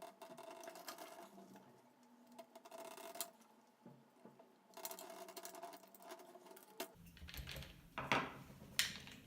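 Small plastic and metal parts of a toy-grade RC car gearbox being handled and fitted together by hand: light irregular clicking, rattling and scraping, with two louder brushing handling sounds near the end.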